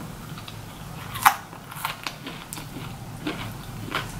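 A person biting and chewing crispy fried food, with several sharp crunches, the loudest a little over a second in.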